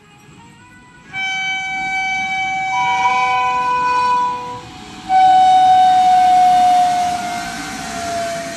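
Electric locomotive of a passenger express sounding its horn in two long blasts as the train approaches and passes, the second louder and falling slightly in pitch, over the steady rumble of the train on the track.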